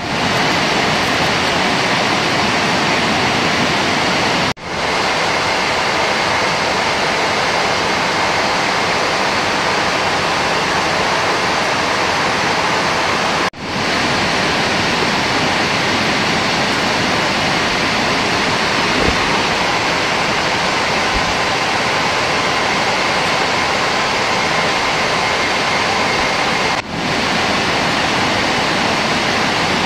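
Steady cabin noise of a Boeing 747-8 in cruise, heard inside the cabin: a dense, even rush of airflow and engines with faint steady hum tones, broken by three brief dropouts.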